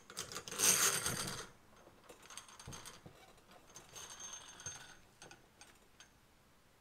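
Steel fork spring dropped into a motorcycle fork tube, its coils scraping and rattling down inside the metal tube about half a second in, followed by lighter metallic clinking and rattling as the tube is handled.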